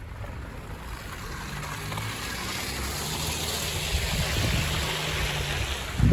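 A vehicle passing on a snowy, slushy street: its tyres hiss through the slush, swelling and then fading, over a low engine hum.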